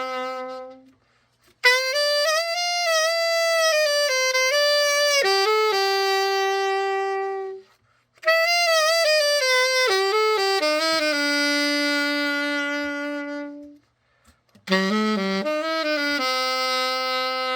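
Selmer Reference 54 alto saxophone played after a full overhaul: a slow melody in phrases of held notes, each phrase ending on a long low note, with short pauses between phrases.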